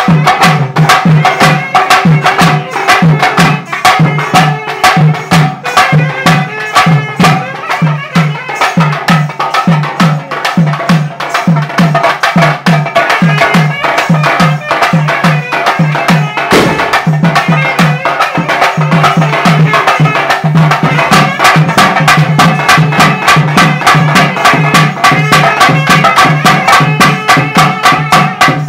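Loud traditional Tamil folk music of the kind that accompanies karagattam: fast, continuous drum strokes over a held melodic tone.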